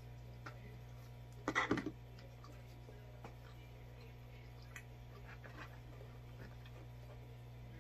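Close-miked eating sounds of pizza: chewing, with a short crunchy crackle about one and a half seconds in, then faint scattered clicks and rustles as a slice is taken from the cardboard pizza box, over a steady low hum.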